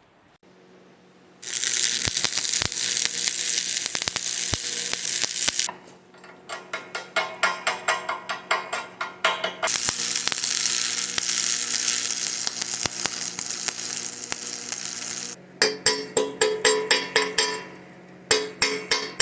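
MIG welding arc sizzling on steel, in long steady stretches alternating with rapid pulsing bursts of about four to five crackles a second, like stitch or tack welding.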